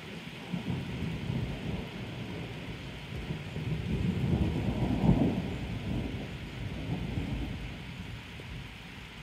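A long roll of thunder: a low rumble that builds to its loudest about halfway through and then fades away.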